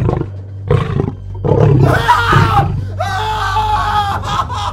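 Lion roars and snarls in two short blasts, then from about two seconds in a long, loud human scream, over a low, dark ambient drone.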